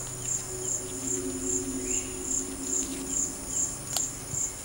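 Forest insects chirring: a high pulsing trill repeating about two and a half times a second over a steady high buzz, with a steady lower hum underneath. A single sharp click comes about four seconds in.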